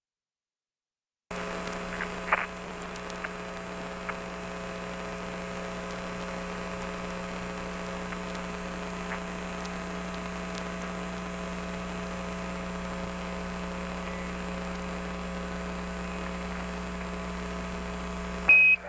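Steady electrical hum with several fixed tones on the Apollo 15 air-to-ground radio audio, starting about a second in, with a few faint clicks. Near the end a short high beep sounds, a Quindar tone keying a transmission from Mission Control.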